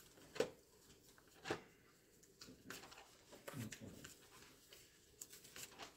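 Pages of a Bible being turned and handled in a quiet room: a few faint, short paper rustles and taps spread across the stretch.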